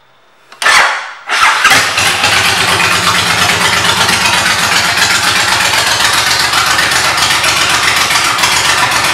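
Suzuki VL1500 Intruder LC's V-twin engine, fitted with aftermarket pipes, being started. A first loud burst under a second in dies back, then the engine catches and settles into a steady, even idle.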